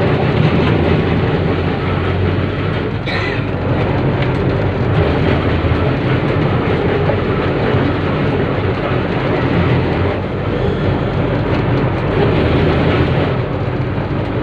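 Sydney C-class single-truck tram running, heard from inside its wooden saloon: a steady running noise of its two GE 67 traction motors and wheels on the rails, with a short sharp sound about three seconds in.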